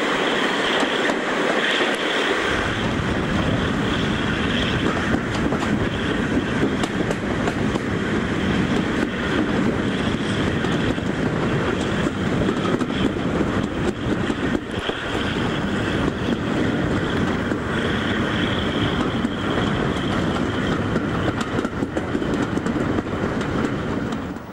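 Diesel-hauled passenger train running along the line, heard from an open carriage window: the carriage wheels clatter over the rail joints under a steady rushing rumble, which deepens about two seconds in.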